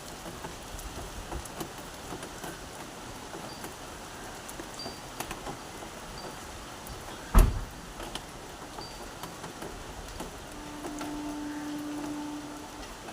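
Steady rain falling, with scattered drips. There is a single sharp, loud thump about seven seconds in, and a steady low hum lasting about two seconds near the end.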